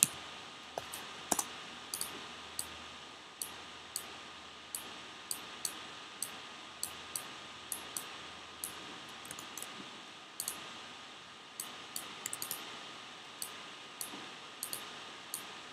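Single clicks from a computer mouse and keyboard, one every half second or so at uneven spacing, over a faint steady hiss.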